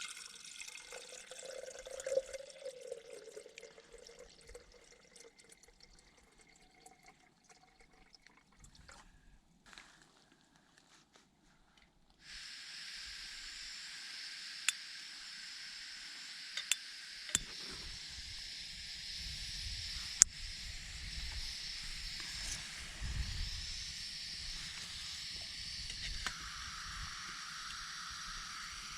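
Water poured and dripping in short irregular bursts, then a camping gas stove starts hissing steadily about twelve seconds in. A few sharp clicks follow, and a low rumble joins as it burns, heating water for a hot drink and meal.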